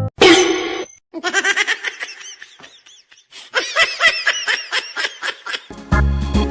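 Laughter in two bouts of quick, repeated pulses, after a short burst of noise at the start; music comes back in near the end.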